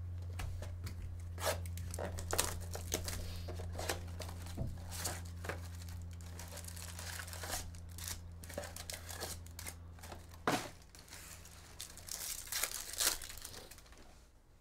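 Trading card pack wrappers being torn open and crinkled by hand, in a string of irregular crackling rips and rustles. A steady low electrical hum runs underneath and stops about two-thirds of the way through.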